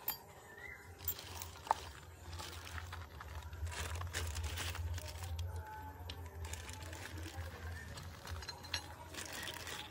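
Clear plastic bags rustling and crinkling as black plastic roof-rack crossbar foot mounts are pulled out and set down, with scattered clicks and taps of the hard plastic parts. A low steady hum runs underneath.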